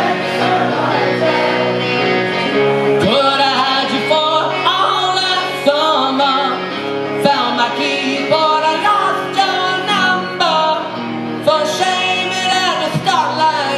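A male lead singer singing live over a rock band's accompaniment, sustained chords underneath the sung lines.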